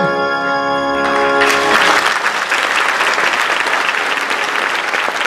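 Pit orchestra holding a loud closing chord, cut off about a second and a half in as a theatre audience breaks into loud, sustained applause.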